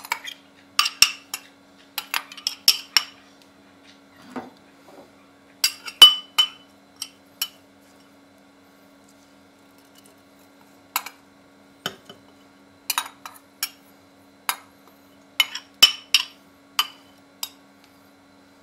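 Metal spoon clinking and scraping against a glass jar and a handheld strainer, in irregular clusters of sharp taps with a few seconds' pause near the middle, as scalded oak bark and elecampane root are spooned into the jar. A faint steady hum runs underneath.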